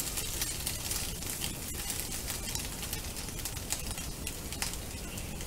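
Scrambled eggs sizzling in a hot nonstick frying pan, with faint clicks and scrapes of chopsticks stirring them at first; the stirring stops partway through.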